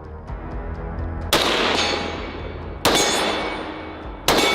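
Three loud, sharp bangs about a second and a half apart, each ringing out for over a second.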